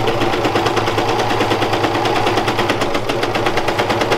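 Janome four-thread overlock machine (serger) running at a steady speed, its knife trimming the fabric edge as it overcasts the seam: a fast, even clatter over a constant hum.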